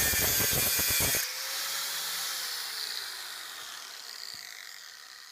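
Angle grinder running against steel with a loud hiss and crackle. It is switched off about a second in, and the disc winds down slowly, its hum falling in pitch as it fades over the next few seconds.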